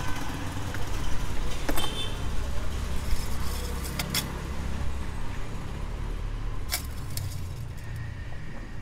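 A few sharp metallic clicks and scrapes of an engine oil dipstick being slid back into its tube to recheck the level after an oil change, over a steady low rumble.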